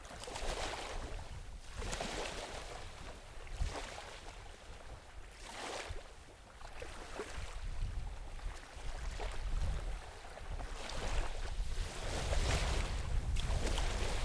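Small waves washing in on a shore in irregular surges every second or two, with gusty wind rumbling on the microphone.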